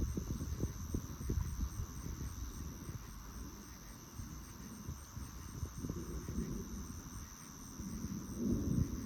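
Night insects chirping in a steady high trill, with a faint regular pulsing above it, over irregular low wind rumble on the microphone that grows near the end.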